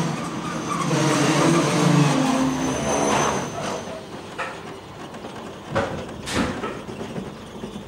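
Vintage BLS Ae 6/8 electric locomotive moving slowly: a steady hum of several tones at first, then a few sharp clanks about six seconds in.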